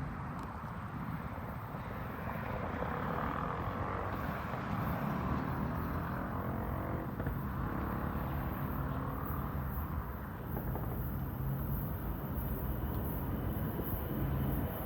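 Diesel locomotives of an approaching BNSF loaded coal train, with EMD SD70ACe and GE ES44AC units, running as a steady low engine rumble that grows louder over the first few seconds.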